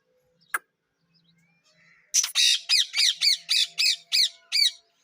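Parrot squawking in a fast run of about ten harsh calls, each falling in pitch, starting about two seconds in. A single sharp click comes about half a second in.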